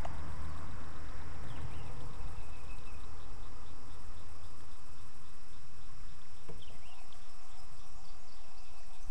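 Insects chirping outdoors in a steady, evenly pulsing rhythm, with a low steady rumble that fades out about halfway through and a couple of short chirps.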